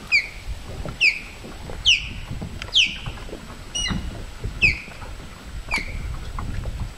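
Osprey calling: a series of short, sharp whistles that fall in pitch, about one a second.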